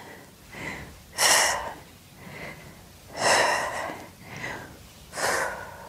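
A woman breathing hard under exercise effort, picked up close by a clip-on mic. Three strong exhales come about two seconds apart, with quieter inhales between them.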